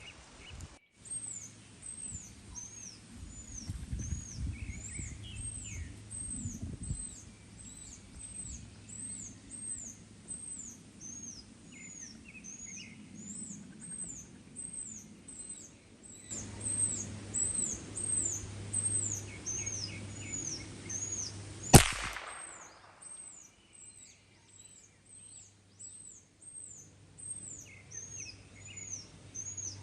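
A Ruger 10/22 .22 rifle fires a single shot, a sharp crack about 22 seconds in that rings off briefly. Birds keep up high, repeated chirping calls, about two a second.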